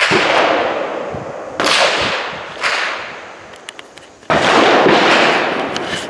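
Four handgun shots, each a sudden crack followed by a long fading echo: one at the start, then about one and a half seconds, two and a half seconds and four seconds in.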